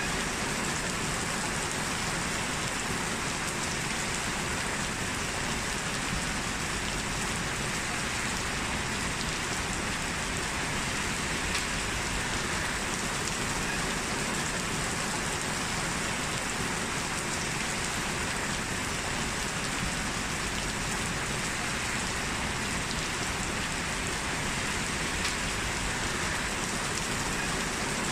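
Steady rain falling and pattering on surfaces, an even, unbroken hiss with no thunder.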